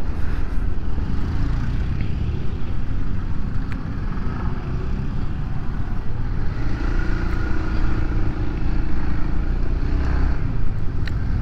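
Onboard sound of a Honda Forza 350 scooter being ridden in traffic: steady engine and road rumble, with a steadier engine drone coming in for a few seconds past the middle.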